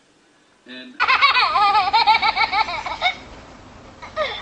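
A baby laughing in long, high-pitched, wavering peals from about a second in until about three seconds, then a short laugh again near the end.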